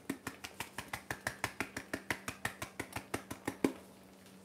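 Pumpkin spice shaken out of a spice shaker jar: a quick, even run of sharp clicks, about eight a second, stopping about three and a half seconds in.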